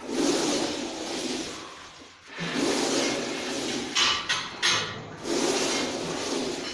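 A powerlifter's heavy, forceful breaths while bracing under a loaded barbell before a squat: three long rushing breaths, with two sharp knocks of the bar and plates about four seconds in as he shifts under the weight.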